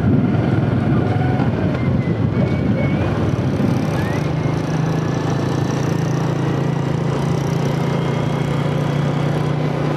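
Small motorbike engine running, rough and uneven for the first few seconds, then settling into a steady low drone from about four seconds in.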